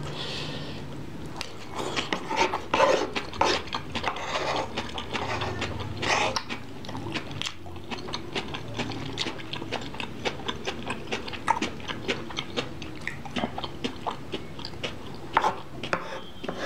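Close-miked eating: chewing and slurping of spicy sauce, then a long run of quick, sharp clicks from a metal spoon scraping and tapping on a wooden plate.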